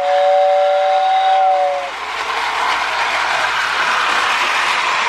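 Toy train whistle sounding a steady two-note chord that cuts off about two seconds in, over the steady running noise of a Lionel 2056 Hudson toy locomotive and its wheels on the track.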